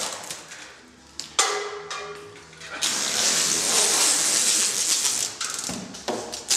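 Clear packing tape being unrolled off a roll held on a pole, a loud rasping screech. It fades about a second in, comes back as a short squealing pull, then runs as one long pull through the second half.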